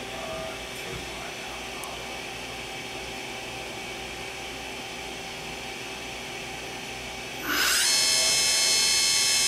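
Steady hum of the idling KIWA KNH-426X horizontal machining center, then about seven and a half seconds in its spindle spins up: a quick rising whine that settles into a steady, louder high-pitched whine at about 5,000 RPM.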